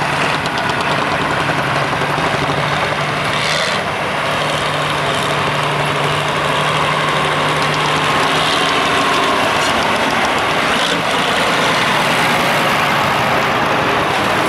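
An old farm tractor's engine running steadily as the tractor drives along a dirt pulling track. A low hum holds for about half the time, and the sound then grows a little louder.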